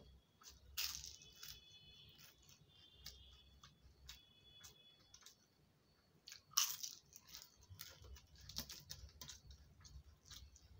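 Crisp papad being bitten and crunched while eating, with a loud crunch about a second in, another just after six seconds, and smaller crunches and chewing between.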